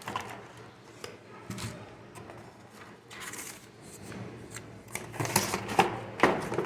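Irregular handling noise: rustling and light clicks, busier and louder near the end.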